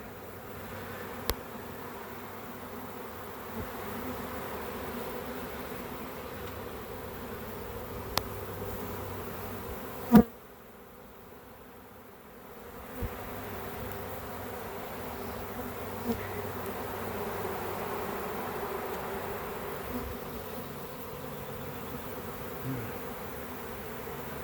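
A swarm of honey bees buzzing steadily around a new hive as the swarm is being hived. About ten seconds in there is a sharp click, after which the buzzing drops away for a couple of seconds before returning.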